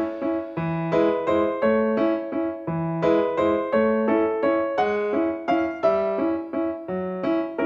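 Background music: a keyboard playing an even run of short, struck notes.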